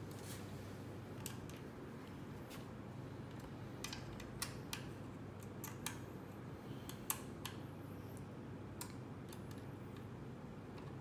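Scattered light clicks and taps of metal parts as the laser head of a portable fiber laser marking machine is fitted to its column and screwed in place by hand, over a steady low hum.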